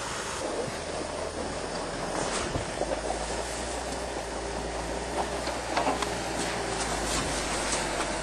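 Nodwell tracked snow vehicle running and moving, its engine humming steadily under a rattling haze, with scattered sharp clanks and knocks.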